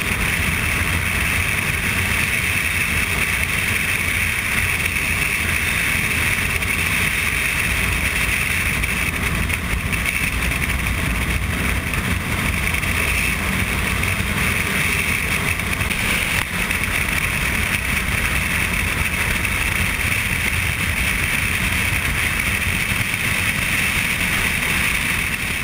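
On-board sound of a motorcycle cruising at a steady speed: an even rush of wind and road noise over the engine's drone, with no revving or gear changes.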